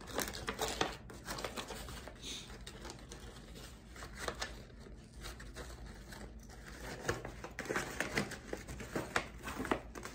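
Gift packaging being handled and unwrapped: rustling and crinkling in short spells with small clicks, busiest near the end.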